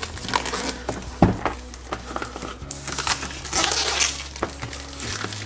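A printed cardboard sleeve being slid off a product box and handled: irregular paper rustling and scraping, with one sharp click about a second in.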